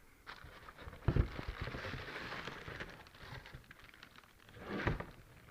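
Shoe packaging being handled: crackling, crinkling rustle of paper or plastic wrapping, with a knock about a second in and another burst of rustling near the end.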